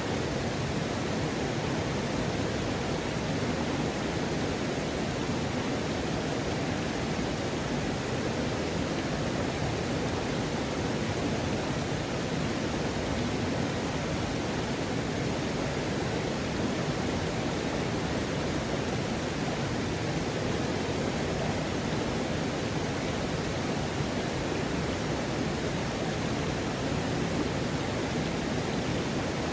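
River waterfall rushing: a steady, unbroken roar of falling water.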